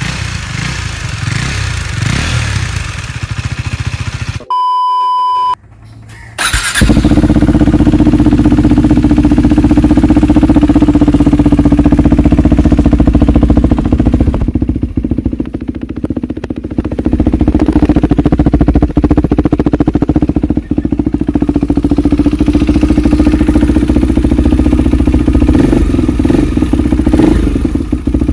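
KTM Duke 390 single-cylinder engine running on its exhaust: a quieter exhaust note for the first few seconds, then a single electronic beep about four and a half seconds in, and from about six and a half seconds a much louder, steady exhaust note with small dips in level.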